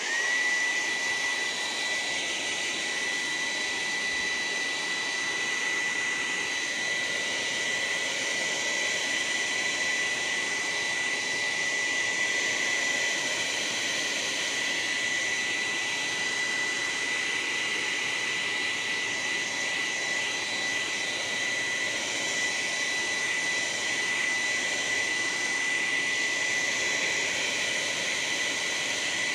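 Hair dryer starting up and running steadily: a rush of air with a high whine that rises briefly as it comes on, then holds one pitch.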